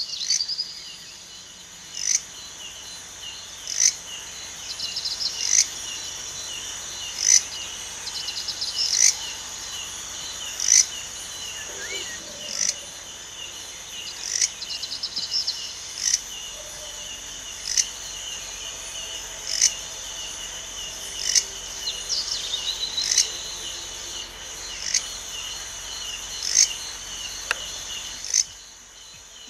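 Insect chorus of a warm night: a steady high chirring of crickets, with a short sharp chirp repeating about every second and three quarters and a few bursts of fast trilling.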